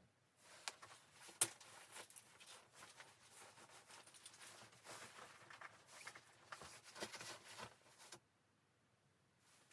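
Faint, irregular small clicks, taps and rustling, like something being handled close by, cutting off abruptly about eight seconds in.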